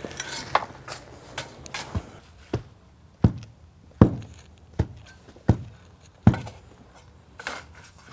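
Soil shoveled and dumped into a trench, then a steel hand tamper thudding down on the loose backfill six times, about one blow every three-quarters of a second, compacting the soil. A few lighter knocks follow near the end.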